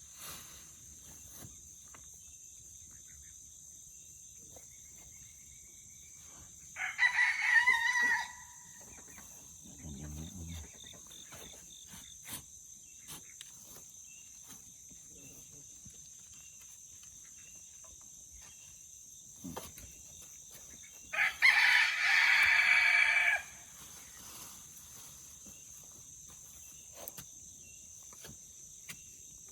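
A rooster crowing twice, about seven seconds in and again about fourteen seconds later, over a steady high insect buzz.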